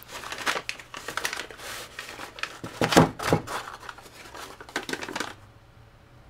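White butcher paper crinkling and rustling as it is unfolded by hand, with a louder crackle about three seconds in; the rustling stops near the end.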